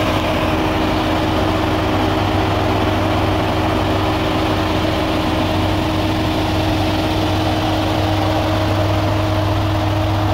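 Ram TRX's supercharged 6.2-litre Hemi V8 idling steadily: a constant low hum with a few steady higher tones and no change in engine speed.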